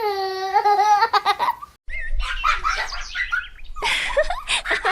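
Children laughing and giggling, starting about two seconds in, over a low hum; before that a held high pitched voice tone ends, followed by a few clicks.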